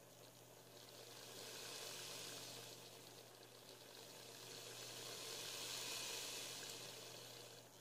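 Small brushed rotary tool (Dremel type) running slowly on a dimmer speed control, a faint hiss that swells and eases twice as the dimmer knob is turned up and down, over a steady low hum.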